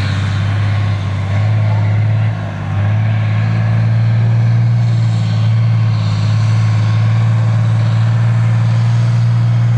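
Racing truck's diesel engine running at steady revs as the truck rolls slowly closer, a low, even drone with a brief dip about two and a half seconds in.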